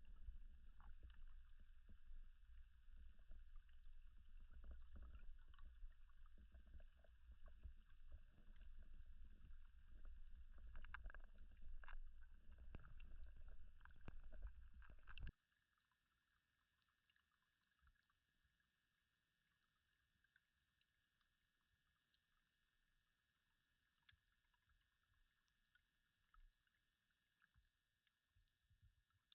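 Muffled low rumble with scattered clicks and ticks, as picked up by a GoPro in its housing underwater in a pond; it cuts off suddenly about halfway through, leaving near silence.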